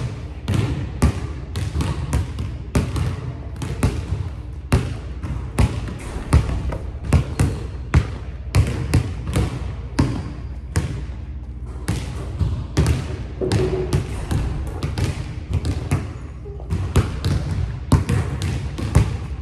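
A basketball dribbled on a hardwood gym floor, about two bounces a second in an uneven rhythm, each bounce echoing through the large hall.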